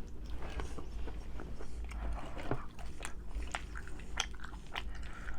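A person chewing and biting food close to the microphone, with many short, wet mouth clicks scattered irregularly throughout.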